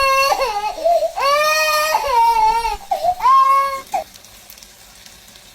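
A child wailing in high-pitched, drawn-out cries, about three long wails, stopping about four seconds in.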